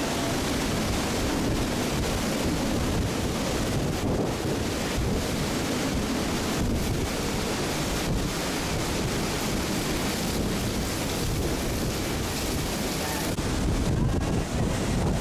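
Category 4 hurricane winds with wind-driven rain blowing steadily and buffeting the microphone. Near the end the buffeting grows louder and deeper.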